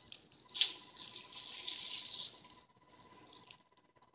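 Wet squelching and dripping as hands squeeze the juice out of crushed mongray (radish seed pods) in a mortar, fading away about two and a half seconds in.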